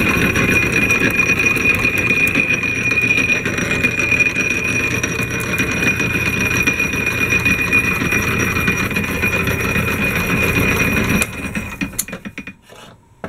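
A.D. Vance No. 12 blacksmith drill press driven by a 3/4 hp Emerson electric motor, running steadily with a high steady tone and a rapid mechanical clatter. It stops about eleven seconds in and winds down quickly.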